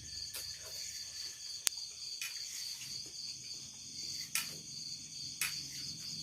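Night crickets trilling in a steady high-pitched chorus, with a few sharp clicks, one loud one about a second and a half in and two more near the end.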